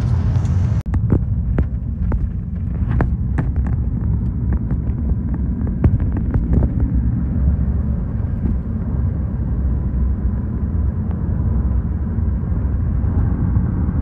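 Car's road and engine noise heard from inside the cabin while driving: a steady low rumble, with scattered light clicks in the first half.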